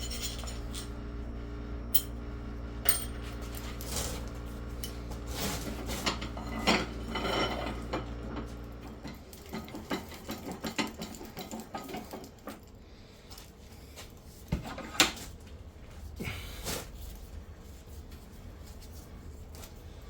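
Metal clinking, tapping and scraping of tools and steel vise parts being handled while a vise's lead screw and slide are worked on. A low steady hum runs underneath and stops about nine seconds in.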